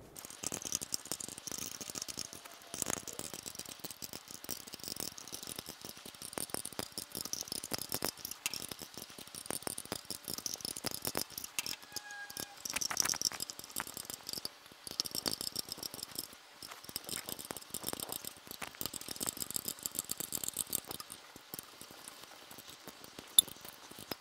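Combination wrench turning the special tool bolts that compress a motorcycle clutch's diaphragm spring: a dense run of small metallic clicks and rattles as the wrench works and is reset on the bolt heads.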